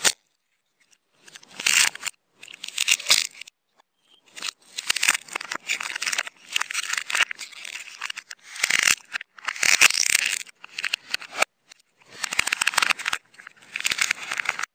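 Kinder Joy egg's thin plastic shell and seal film being handled and peeled by hand: bursts of crinkling, tearing and scraping with short pauses, after a sharp click at the very start.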